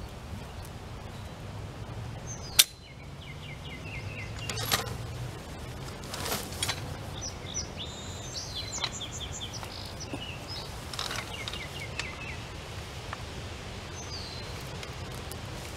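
A sharp metal clank about two and a half seconds in, then a few lighter knocks, as a high-lift farm jack is worked and repositioned at a wooden fence post. A songbird sings in quick chirping phrases through the middle.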